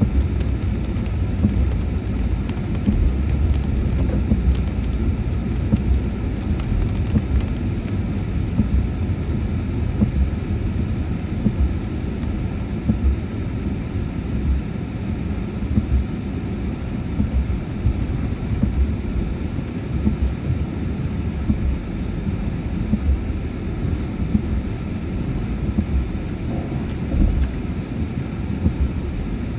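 Car cabin noise while driving on a wet road in the rain: a steady low rumble of tyres on wet pavement, with rain hitting the car and many short thumps.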